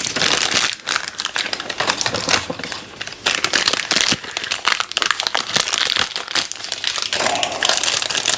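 Plastic wrapping of a printer ink cartridge crinkling and crackling as it is torn open and handled, in a dense run of irregular rustles and small clicks.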